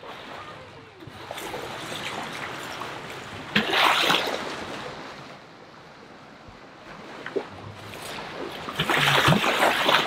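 Sea water rushing and splashing, with two louder surges: one about four seconds in and one near the end.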